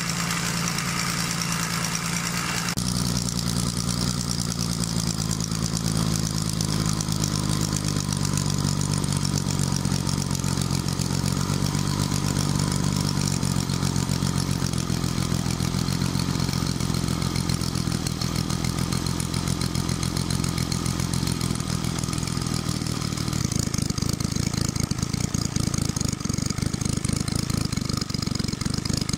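Home-built scale model multi-cylinder overhead-valve petrol engine running steadily, with a rapid, even firing beat. It gets slightly louder about 23 seconds in.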